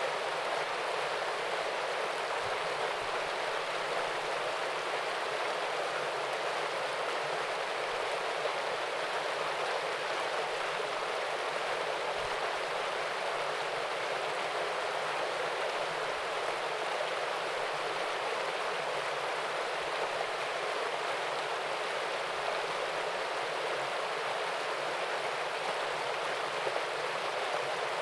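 Small waterfall and stream: water splashing and rushing in a steady, even wash.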